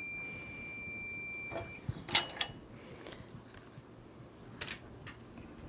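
TransPro Plus cap press timer sounding one long, steady, high-pitched beep to signal that the pressing time has run out. It cuts off a little under two seconds in and is followed by a few knocks as the heated press is opened.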